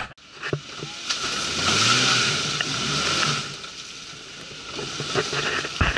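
Suzuki Escudo engine revving while its wheels spin and churn in mud and slush, loudest about a second to three seconds in, then dropping back. A short loud rustle near the end.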